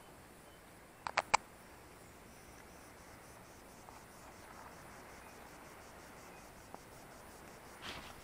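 Three sharp clicks in quick succession about a second in, then faint insect chirping: a thin high-pitched pulse repeating about five times a second.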